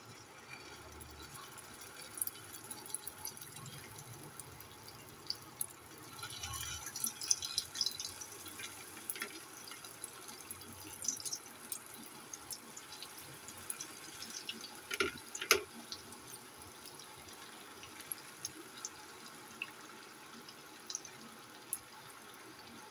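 Aloo tikkis (potato patties) shallow-frying in hot oil in a kadhai: a steady sizzling hiss with scattered crackles and a few sharper pops as the patties are laid in one by one.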